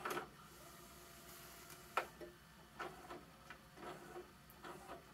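Faint, irregular mechanical clicks from a Sony SLV-N50 VHS VCR as its rewind button is held down, the sharpest about two seconds in.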